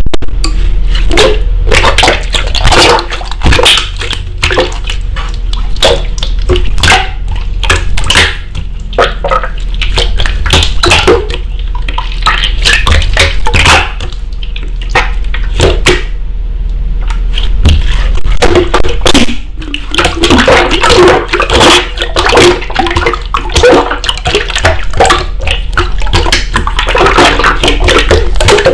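Hands squishing, poking and pressing slime, making a dense, continuous run of wet clicks, crackles and small popping squelches.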